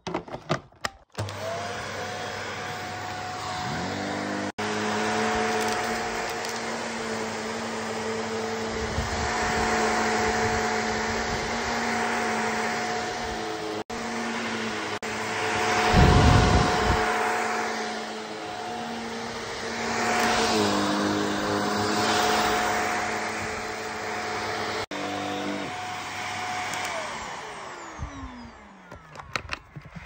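Shark Powered Lift-Away upright vacuum cleaner switched on with a click and spinning up to a steady motor whine. It runs while pushed over carpet, the noise surging now and then. Near the end it is switched off and winds down, its pitch falling.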